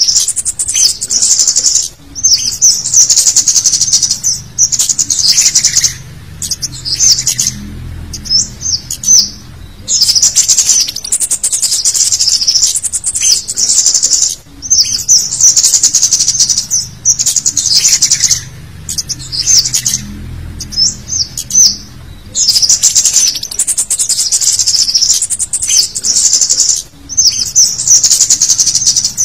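Male scarlet-headed flowerpecker (cit kemade) calling in a busy, harsh lure track: dense bursts of very high, sharp chittering chip notes, each a couple of seconds long with short breaks between, the pattern repeating over and over.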